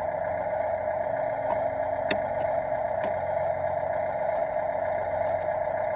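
Small electric motor of a motorized toy garbage truck whirring steadily, with a few sharp clicks in the first half.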